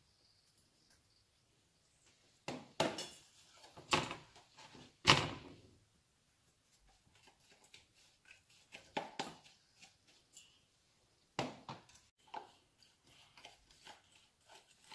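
A plastic bag of sodium acetate being handled and tipped over a steel saucepan: scattered rustles and knocks, the loudest about five seconds in.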